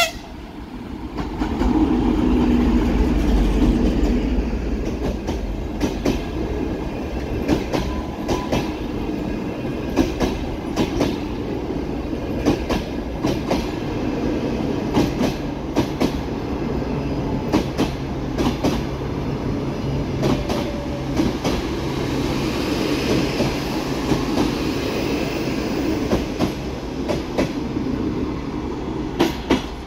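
TEP70 diesel locomotive passing close by with a heavy engine rumble about two seconds in, then its passenger coaches rolling past with a steady clickety-clack of wheels over the rail joints.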